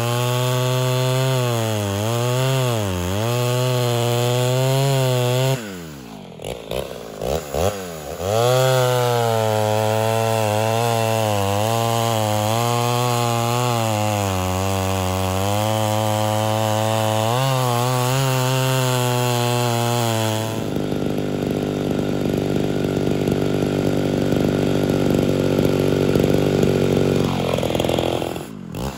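Ported Homelite Super XL Auto two-stroke chainsaw cutting into a log under load, its pitch wavering as it bogs and recovers in the cut. About six seconds in it drops off briefly, then comes back up and cuts on. About twenty seconds in the note changes to a steadier engine sound.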